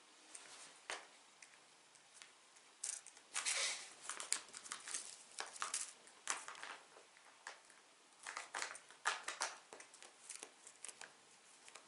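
Foil cat-food pouches crinkling as cats handle them: irregular short crackling rustles, busiest a few seconds in.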